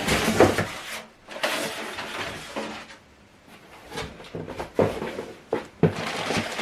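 Unboxing handling noise: packaging rustling as parts are taken out and moved, with several sharp knocks and clacks in the last few seconds.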